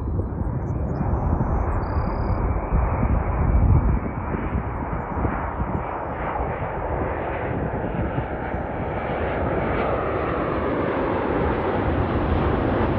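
Jet airliner's engines rumbling. A deep, steady roar whose higher hiss grows stronger over the second half as the plane comes nearer.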